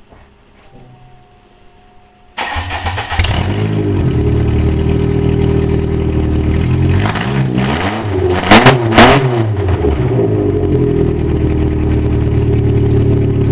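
1998 Ford Escort ZX2's 2.0-litre Zetec DOHC four-cylinder, breathing through freshly fitted open exhaust stacks, starting for the first time about two seconds in and running loud. It is revved up and down in the middle, with two sharp blips near the halfway mark, then settles back to a steady idle.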